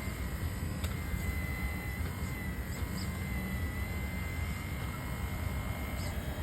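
Radio-controlled model excavator running: a steady low rumble with a thin, high, even whine from its small electric motor, and a few faint ticks.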